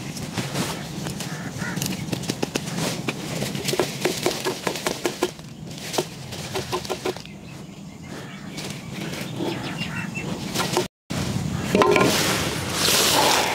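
Rustling and crackling of freshly dug ginger clumps, dry roots and soil, as gloved hands pull them apart and shake them, with runs of quick ticks in the middle. The sound drops out for an instant near the end, then the rustling comes back louder.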